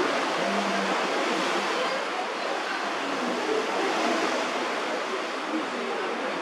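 Steady rushing of water, an even noise that holds without breaks or distinct events.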